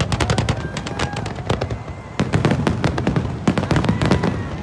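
Fireworks display: a dense, continuous barrage of bangs and crackles, several a second.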